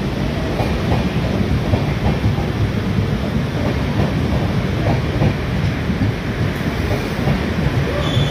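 Indian Railways passenger train of LHB coaches rolling past along the platform: a loud, steady rumble of wheels on rails, with a few faint knocks as the wheels cross rail joints.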